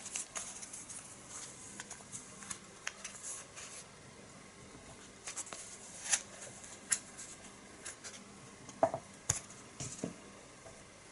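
Hands handling an e-cigarette kit's packaging: a clear plastic wrapper and a cardboard insert rustle and click as the pen battery and glass tank are taken out. Scattered sharp ticks come in the second half as the parts are set down on the tabletop.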